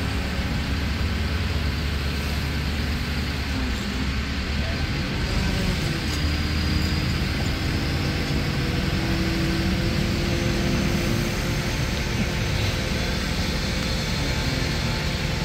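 Crane engine running steadily under load while hoisting a boat on lift cables, a constant low drone with a faint tone that shifts slightly in pitch partway through.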